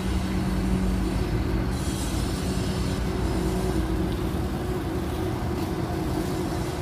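Steady mechanical hum and rumble with two low steady tones, unchanging throughout.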